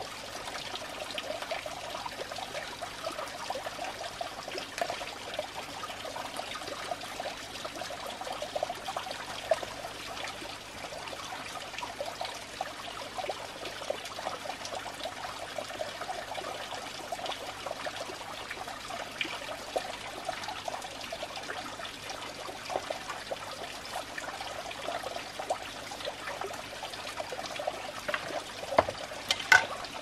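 Water running steadily from a bamboo pipe and splashing onto the wet surface below, with a few sharp knocks near the end.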